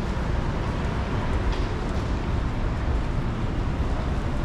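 Busy city street ambience: a steady low rumble of traffic with general street noise.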